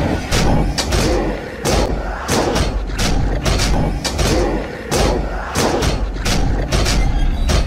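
Many hands pounding and slamming against a door or glass pane, loud irregular thumps about three a second over a low rumble.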